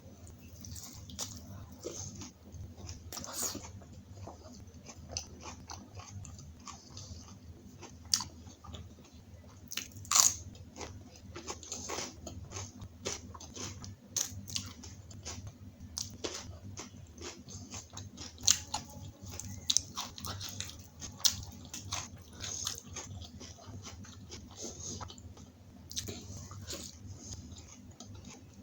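Close-miked chewing and biting of food: wet, irregular mouth sounds with crisp crunches, a few of them much louder than the rest, as butter naan, kadai paneer and salad are eaten. A steady low hum runs underneath.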